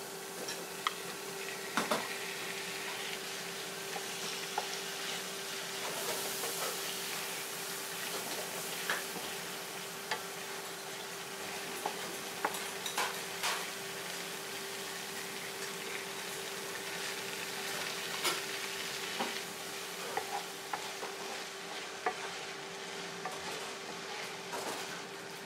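Beef strips, later joined by chopped onion, sizzling in oil in a nonstick frying pan, with a spatula stirring and scraping against the pan in frequent clicks and knocks.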